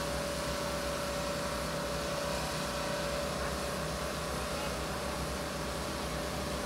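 Heavy-equipment diesel engine, an excavator, running steadily with a low rumble and a constant whine.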